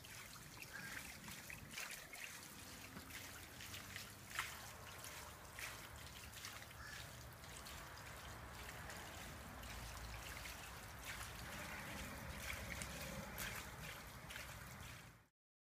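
Water from a garden hose trickling steadily into a plastic kiddie pool, with scattered light splashes and clicks. It cuts off suddenly near the end.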